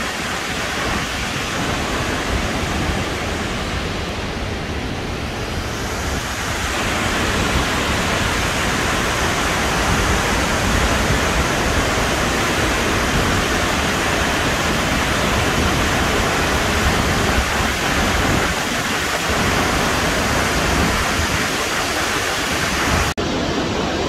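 Burney Falls pouring into its plunge pool: a steady rush of falling water that grows louder about six seconds in.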